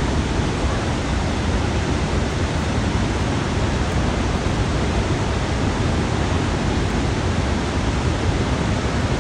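Steady roar of water at Niagara's Horseshoe Falls: an even, unbroken rush with a deep rumble underneath.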